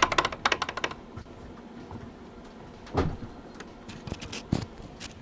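Rapid run of knocks from a worn steering rack on a Honda Civic ES1 as the steering wheel is rocked back and forth slightly, heard in the cabin. The knocking comes from play in the rack's pinion gear housing and is terrible. It stops about a second in, with a couple of single knocks later.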